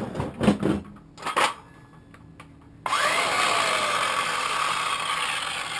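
Small DeWalt cordless circular saw switched on about three seconds in: its motor spins up with a rising whine and then runs steadily, the blade turning free, not cutting. Before that come a few short handling knocks and clicks.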